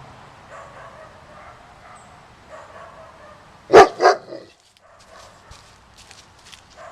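German Shepherd barking twice in quick succession near the middle, two loud barks about a third of a second apart, followed by a fainter third bark.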